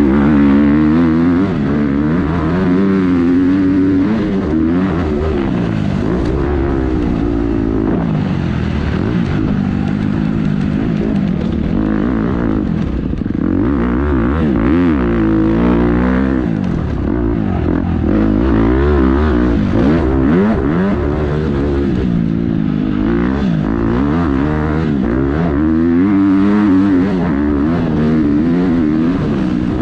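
Motocross dirt bike engine, heard from onboard, revving up and down over and over as the rider accelerates down the straights, shifts and rolls off into the corners.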